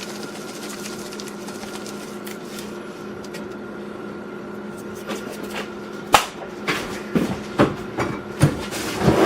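Kitchen handling noises over a steady hum. From about five seconds in come several sharp knocks and clicks, as cheese containers and utensils are picked up and set down.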